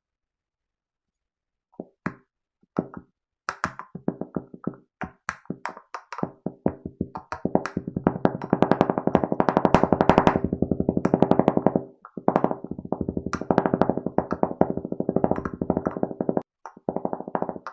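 Kinetic sand being squished and cut, a run of sharp crackling crunches that starts about two seconds in, sparse at first, then thickening into a dense, fast crackle, broken off briefly twice by cuts.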